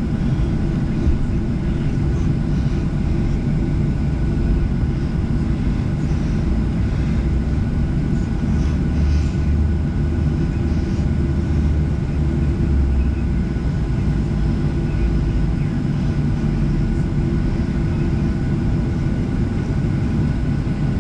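Steady aircraft cabin noise in a Boeing 737-700: the CFM56 engines and airflow making an unchanging low rumble, with a few faint steady tones over it.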